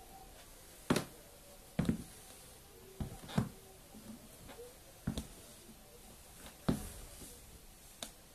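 Nike Shox NZ sneakers stepping and tapping on a wooden parquet floor: about seven short, irregular knocks of the soles as the feet shift position.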